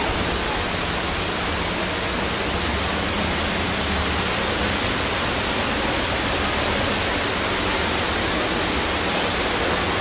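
Steady, loud rushing of water from heavy rain and flooding, an even unbroken noise.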